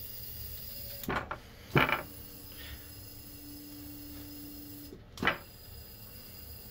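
Skytron 3602 surgical table's hydraulic pump system running as the table is driven up and down: a low steady hum, a steady tone between about two and five seconds in, and sharp clunks of the mechanism about a second in, at two seconds and near five seconds.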